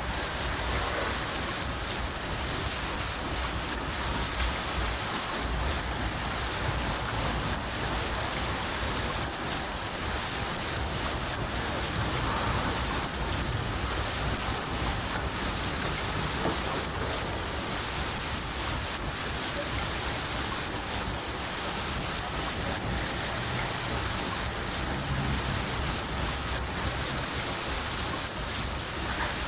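Field cricket chirping steadily in evenly spaced high-pitched chirps, a few each second, with a brief pause about eighteen seconds in, over a steady hiss of rain and a low rumble of distant thunder.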